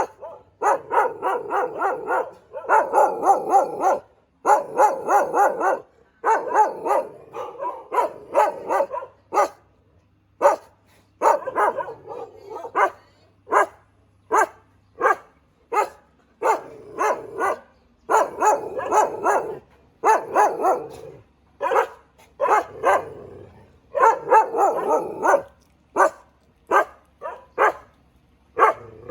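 Thai Ridgeback dog barking in rapid bouts of several barks a second, with short pauses between the bouts.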